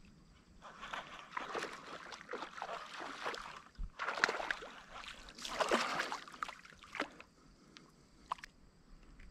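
Water splashing and sloshing in irregular bursts as a small largemouth bass thrashes at the surface while being reeled in and landed by hand; the splashing is loudest about four seconds in and again around six seconds, then dies down.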